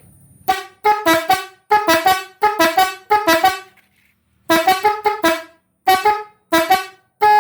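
Telolet horn, three trumpets run by an electronic module in its chopped mode, playing its stepping "te-lo-let" notes in short, quick blasts. The blasts come in clusters with a brief pause about four seconds in, and a longer blast starts near the end.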